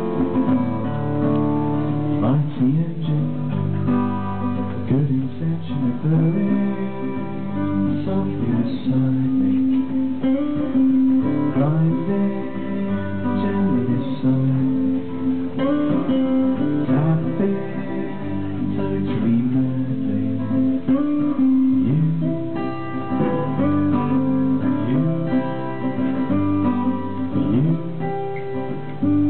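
Solo acoustic guitar strummed and picked in a steady rhythm, an instrumental passage with no singing.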